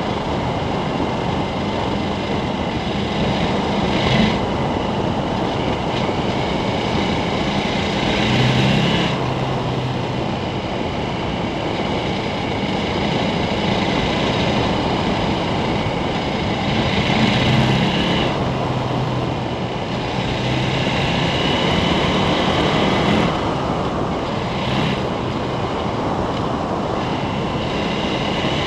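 Heavy wind rush on the camera while riding a KTM 1290 Super Adventure at road speed, with its V-twin engine running underneath. The engine note shifts in pitch a couple of times, around eight and eighteen seconds in.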